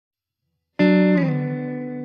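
Logo sting: a single loud chord struck just under a second in, dropping slightly in pitch soon after and then ringing on, slowly fading.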